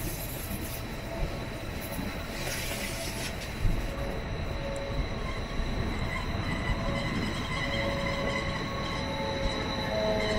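Bernina Express train running along the track, heard from a carriage window: a steady rolling rumble with thin, high wheel squeal tones that grow stronger after a few seconds, and one clack about three and a half seconds in.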